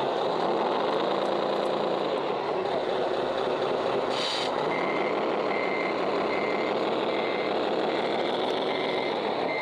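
Reversing alarm beeping, as from a radio-controlled truck's sound module: evenly spaced single-pitch beeps, about three every two seconds, starting about halfway through. A short hiss comes just before the beeping starts, over a steady background din.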